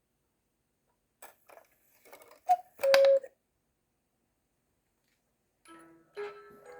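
Walzer cuckoo clock striking: a few mechanical clicks, then one two-note cuckoo call, high then low, about three seconds in. Near the end the clock's music box starts playing.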